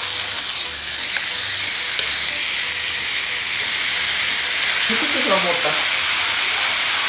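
Thick slice of marbled ribeye (kkot-deungsim) sizzling in a steady hiss on a hot electric grill pan as it is laid down and pressed flat with tongs.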